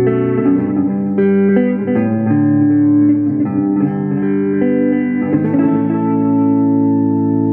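Clean electric guitar played through a Fender Champion 20 amp with reverb and delay: a run of picked notes and chord fragments, then a chord struck about five and a half seconds in and left ringing.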